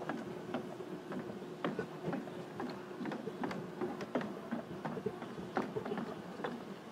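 Footsteps of several people walking on a hard surface: an irregular run of short clicks and knocks.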